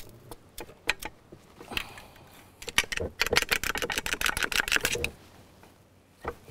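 Rapid clicking and scraping, about ten clicks a second for roughly two seconds, as the rubber water-pump impeller of a Yamaha outboard lower unit is pried and worked up the driveshaft; a few single clicks come before it and one after.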